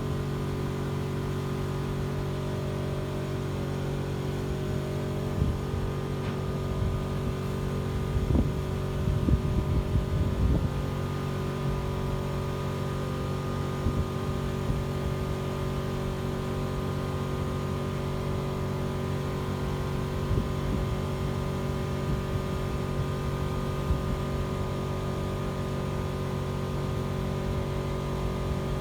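Crew boat's engines running steadily at a constant pitch, with a stretch of louder low knocks about eight to eleven seconds in.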